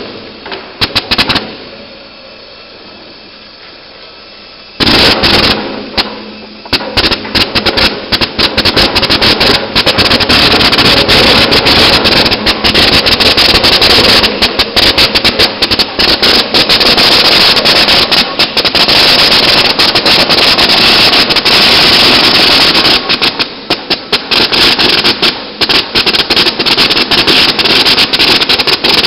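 Colour sorting machine running with olives passing through it: a dense, rapid clatter of hard clicks over a steady machine hum. The clatter starts suddenly about five seconds in, after a quieter stretch of hum alone.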